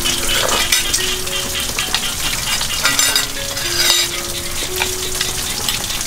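Background music, a slow melody of held single notes, over a steady crackling hiss.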